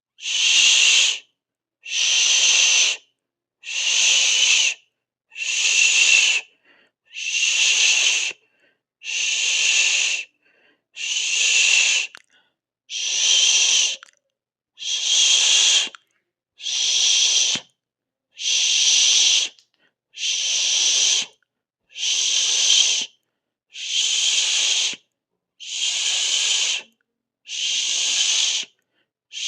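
A person hissing through the mouth in a slow, even rhythm: hisses about a second long, one roughly every two seconds, with silence between them.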